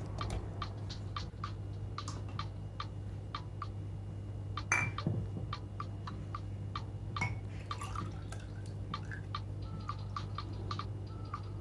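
Light clicks and taps of kitchenware against glass, a few a second at uneven spacing, over a steady low hum, with one louder clink about five seconds in.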